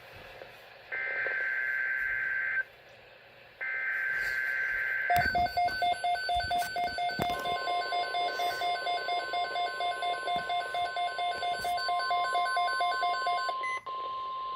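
NOAA Weather Radio emergency alert beginning. The last two buzzy bursts of the digital alert header come first. About five seconds in, a weather alert radio's alarm starts beeping rapidly. About two seconds later the long steady warning alarm tone joins it and holds. Together they signal a severe thunderstorm watch being issued.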